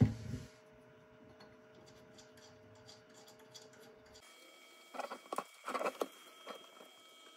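Small metal clicks and scrapes of an Allen key working the bolts on a fiber laser head's mount, faint for the first few seconds. A few short, louder scrapes come about five to six seconds in, and there is a low thump right at the start.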